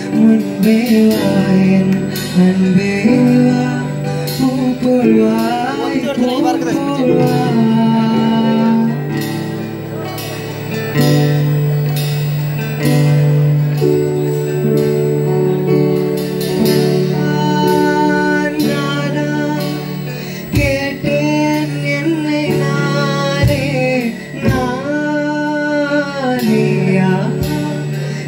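Live band music: a male voice singing into a microphone over an electric bass and a strummed acoustic guitar.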